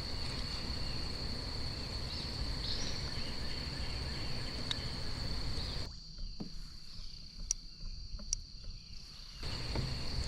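Steady high insect trill, crickets, over a low background rumble. About six seconds in, the background drops away for a few seconds, with a few light clicks, and then comes back.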